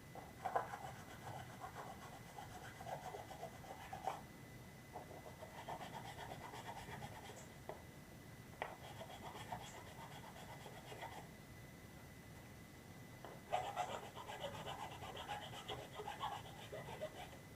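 Sandpaper rubbed back and forth by hand on a 3D-printed plastic part, in four bouts of quick scratchy strokes a few seconds each.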